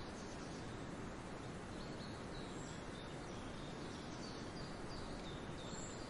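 Steady forest hiss with several faint, short, high bird chirps scattered through it, mostly in the second half.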